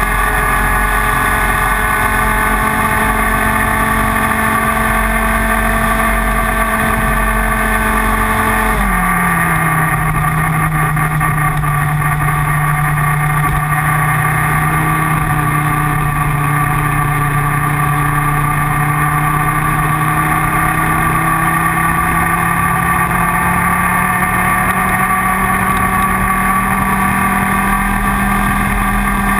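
IAME Leopard 125cc two-stroke kart engine running hard at high revs. The pitch drops sharply about nine seconds in as it comes off the throttle, then climbs slowly and steadily as it pulls back up through the revs.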